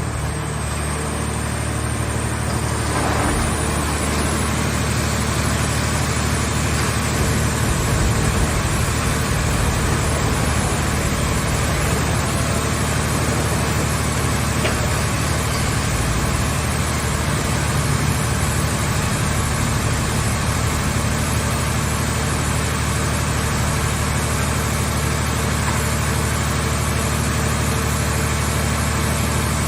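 Car shell baler's engine running at a steady drone.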